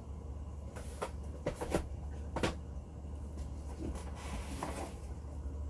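Plastic toy playset parts and packaging being handled: a few light knocks and clatters in the first half, then a short rustle near the end.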